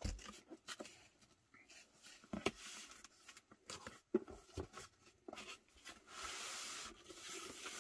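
Cardboard packaging being handled and opened: scattered light taps and scrapes on the box, then a longer scraping rustle about six seconds in as the packaging slides against the cardboard.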